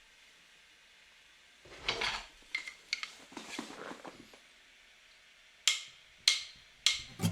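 Kitchen dishes and utensils being handled: a scrape and a few clinks about two to three seconds in, a stretch of rustling handling, then a series of sharp knocks or taps near the end.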